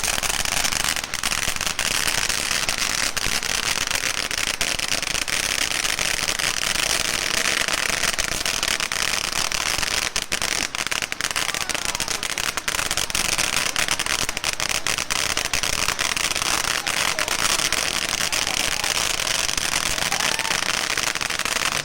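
Fireworks crackling without a break, a dense rapid popping like a string of firecrackers, with sharper individual pops scattered all through.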